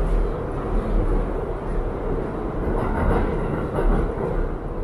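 New York City Subway train running: a steady, deep rail noise with slight swells, no clear rhythm.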